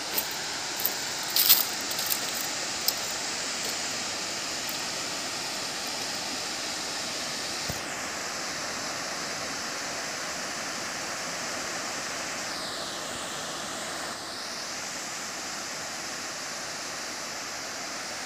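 Water rushing steadily through a dam's open spillway gates and down the concrete chutes into the pool below. A few small clicks come in the first three seconds.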